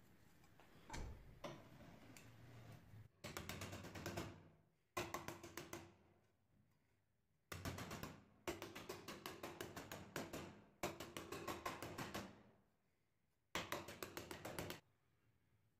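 A hammer rapidly striking a thin metal sheet clamped in a vise while the sheet is shaped into a belt cover. The blows come in six quick runs, about five to six a second, with short pauses between the runs, after a couple of single knocks.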